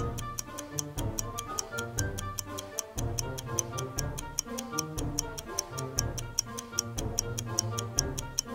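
Clock-style ticking countdown timer, about four quick, even ticks a second, over cheerful background music.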